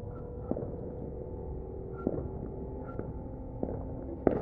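Distant fireworks banging now and then, about five separate bangs, the loudest near the end, over a steady low rumble.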